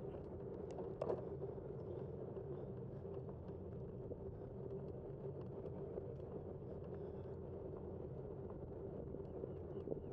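Steady rolling noise of a bicycle riding on asphalt, with scattered small clicks and rattles and a sharper knock about a second in.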